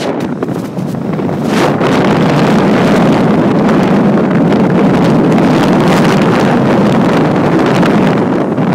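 Wind rushing hard over a phone's microphone, mixed with road rush, as the phone travels fast outside a moving car. The noise swells over the first couple of seconds and then holds steady.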